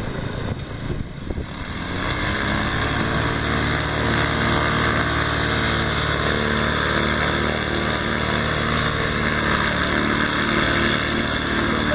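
Paramotor with an adapted four-stroke engine and propeller, throttling up about two seconds in and then running steadily at high power during the takeoff run.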